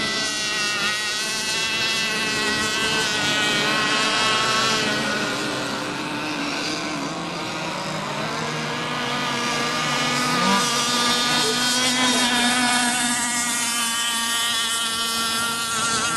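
Several radio-controlled racing boats' small high-revving engines whining together at different pitches, the pitches wavering and shifting as the boats run the course.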